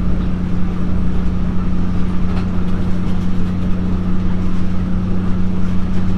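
Nippon Sharyo diesel multiple unit's diesel engine running steadily with a constant low hum, heard from inside the passenger car over the even rumble of the wheels on the track.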